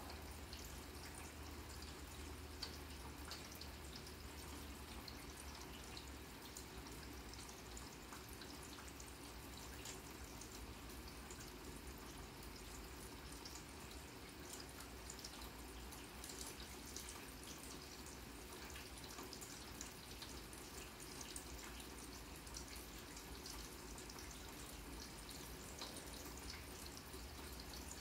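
Steady light rain falling on a grass lawn, with many small scattered drip ticks.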